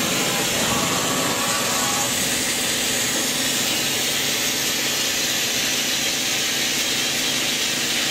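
OKK HM80S horizontal machining center running under power: a steady mechanical hum under a loud, even hiss.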